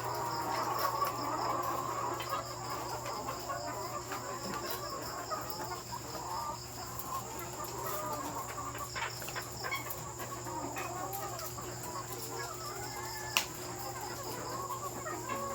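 A flock of laying hens clucking steadily, many calls overlapping, over a steady low hum and a high insect-like chirring. One sharp click about 13 seconds in.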